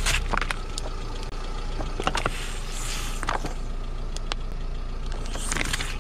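Car engine running under a steady low rumble while a tyre rolls over a plastic drink bottle on wet asphalt, with sharp crackles and pops of the plastic crushing and liquid squirting out, clustered near the start, around two seconds in, and near the end.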